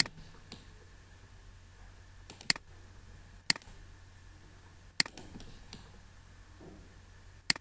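Computer mouse button clicked about five times, one to two and a half seconds apart, each a single sharp click, picking points for a chain of continued dimensions in AutoCAD. A faint steady hum runs underneath.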